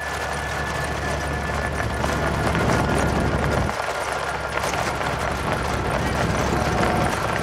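Steady rumble of a moving vehicle and wind noise, with a voice talking over it.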